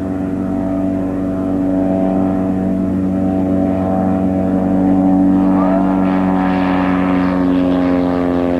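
Titan Tornado light-sport aircraft's engine and propeller at takeoff power, a steady droning hum that grows louder as the plane lifts off and climbs past.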